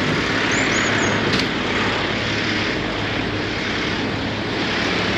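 Peterbilt 379's Cat C15 diesel engine running steadily, a constant drone with no change in pitch or level.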